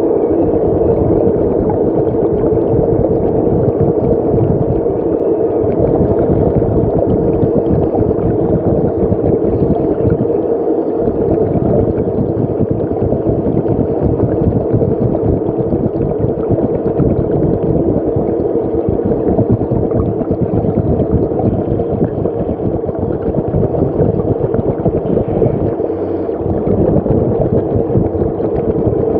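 Steady gurgling of moving water with a constant hum underneath, from a fish-holding tank or pond's water circulation.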